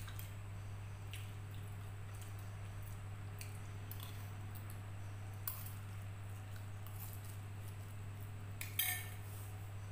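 Spoon and fork clinking and scraping on a ceramic plate of instant fried noodles, with soft eating sounds between, over a steady low hum. A short cluster of clinks near the end is the loudest moment.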